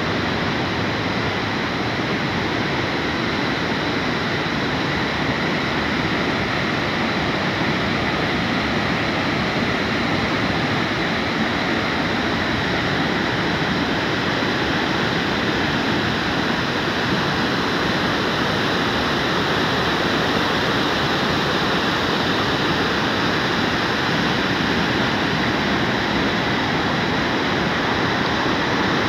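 A mountain river in spate after rain, its muddy white water rushing steadily over rocks.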